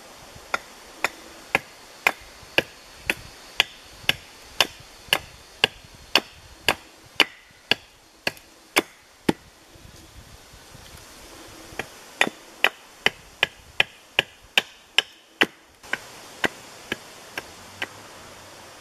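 Hatchet chopping a piece of wood held upright on a chopping block, roughing out a carving blank: sharp wooden knocks about two a second, a short pause, then a slightly faster run. A few lighter knocks follow near the end.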